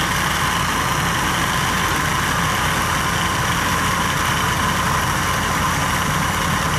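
An engine idling steadily, running at a constant speed with no change in pitch or level.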